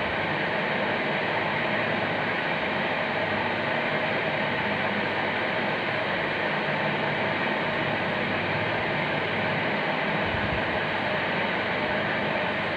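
A steady hiss with no rhythm or change.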